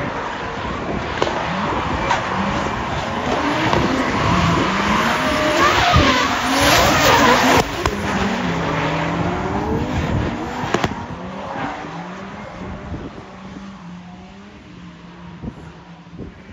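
Several drift cars' engines revving up and down together, with tyre squeal and skid noise as the cars slide past. It grows loudest about seven seconds in, drops off sharply soon after, and fades as the engines move away.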